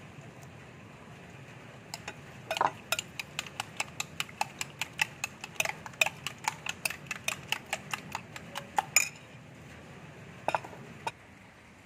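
Raw eggs and chopped onion being beaten with a metal utensil in a glass bowl: quick, even clinks against the glass, about four a second. They start after about two seconds, stop a couple of seconds before the end, and two last clinks follow near the end.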